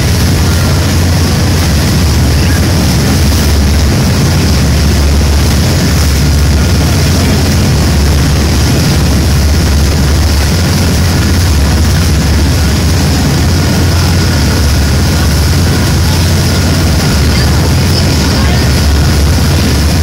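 Boat running at speed: a loud, steady engine drone under the rush of the churning wake, unchanging throughout.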